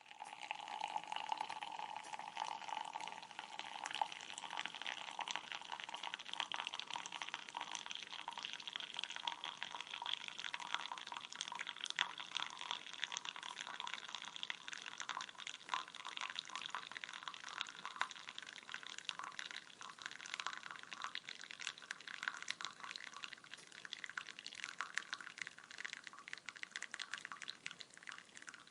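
Liquid poured in a steady stream from one container into another, gushing and splashing without a break.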